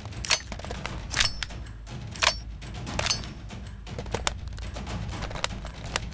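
Gun foley: four sharp metallic clacks with a bright ring, roughly a second apart, followed by a run of lighter clicks and ticks.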